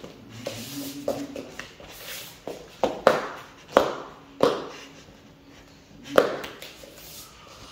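Sharp snaps and slaps of a child's karate kata, gi sleeves cracking and hands and feet striking, on a wooden floor. There are about four loud ones between three and six seconds in, with softer taps and steps before them.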